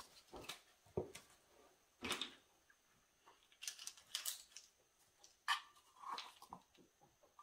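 Faint, scattered clicks and crinkles of a can of baking powder being opened: the lid coming off and the foil seal peeled back.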